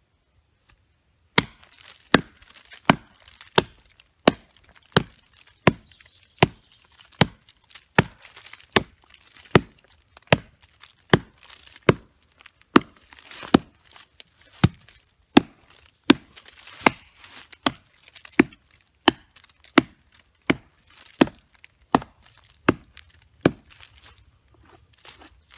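A large homemade knife chopping into a rotten fallen log, in steady, sharp strikes about three every two seconds, starting about a second and a half in. The strikes are part of a hard-use test of the blade.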